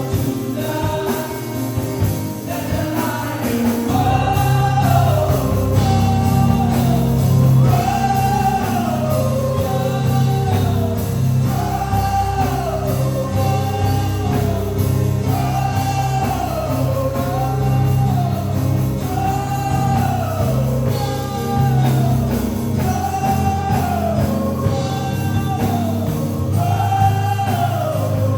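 Live gospel worship music: voices sing a short phrase that falls in pitch, repeated about every two seconds, over a steady bass and band accompaniment.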